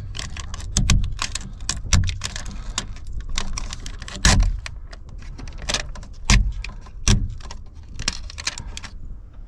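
Window tint film crackling and crinkling as it is picked at and peeled off the topper's sliding side window, with a few louder knocks of hands and window against the frame.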